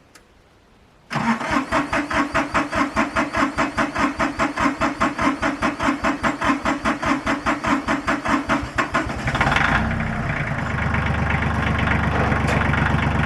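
Tractor engine being cranked over by its starter, a steady pulsing of about five beats a second for some eight seconds, then catching about nine and a half seconds in and settling into a steady idle.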